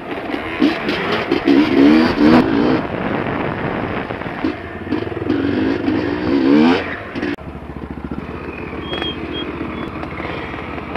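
Husqvarna dirt bike engine under throttle off-road, revving up and down again and again, then dropping back to low revs about seven seconds in.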